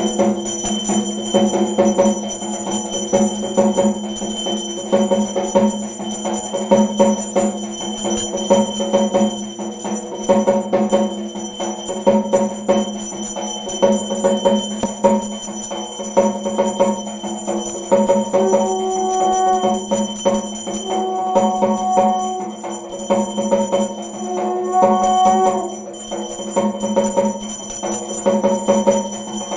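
Rhythmic aarti music: steady drumming with bells and jingles ringing throughout. Past the middle, three held, horn-like tones sound one after another.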